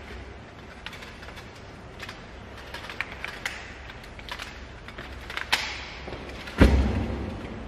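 Small clicks and taps of camera gear being handled and packed away, over a low steady hum. A little past two-thirds in comes a single heavy thump that dies away over about a second.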